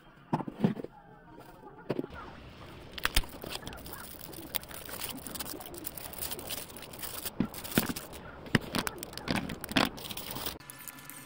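Handling noise: a string of sharp clicks and knocks over rustling, as objects are picked up and moved about close to the microphone.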